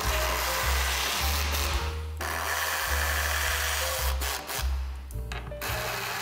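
Pneumatic screwdriver running in several short bursts, hissing and whirring, as it drives the mounting screws of a woofer into a speaker cabinet. Background music with a steady bass line plays under it.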